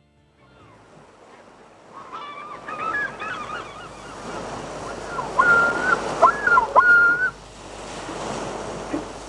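Birds calling over a steady rush of wind and surf that fades in at the start: a few short calls about two to three seconds in, then longer, held calls with sliding ends about five to seven seconds in.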